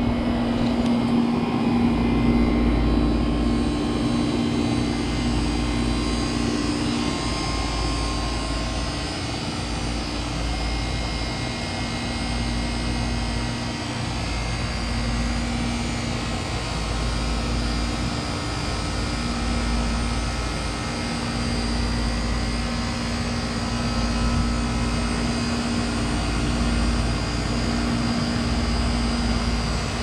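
2004 Goodman 12 SEER 3.5-ton heat pump outdoor unit running steadily during its defrost cycle: a constant hum over an even running noise, with no sudden changes.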